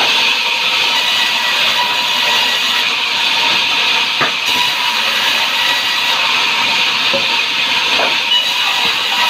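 Sawmill saw cutting timber: a loud, steady hissing noise with a thin, steady whine underneath and a couple of faint clicks.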